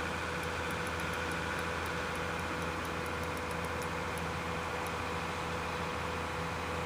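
Steady background hum and hiss with a constant mid-pitched tone, and faint irregular high ticks in the first few seconds.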